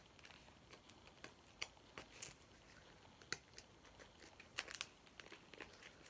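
Faint, irregular plastic clicks and crinkles of a Mini Brands ball capsule being twisted and pried at by hand, a capsule that is stuck and hard to open.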